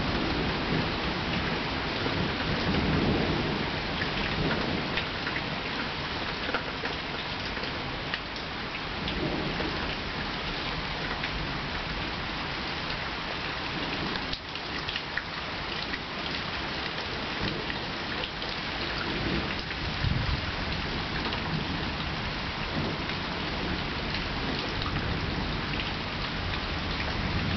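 Steady rain falling through a summer thunderstorm, with low rumbles of thunder rolling in and out, loudest about three seconds in and again about twenty seconds in.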